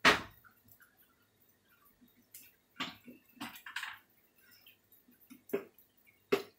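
Sparse light clicks and clinks of kitchen utensils: a metal spoon in a pan and a sauce bottle being handled, with a sharp click at the start and another near the end and quiet gaps between.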